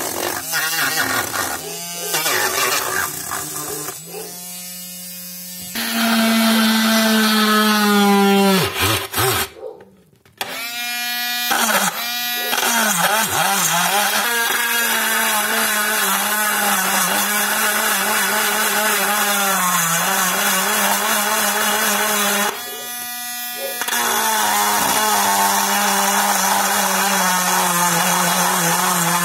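Handheld mini rotary grinder running with a steady high whine. It slows and stops briefly about ten seconds in, then runs again as a small bit grinds a hole through the thin aluminium wall of a drink can, with a hiss over the whine and brief dips in pitch as the bit bites.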